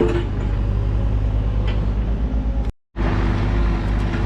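Engine running steadily at idle, a low even hum with a fast pulse; it cuts out completely for a moment almost three seconds in and then resumes.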